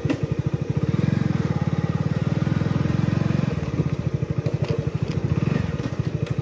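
Motorcycle engine running steadily while riding along, its exhaust giving a rapid, even beat.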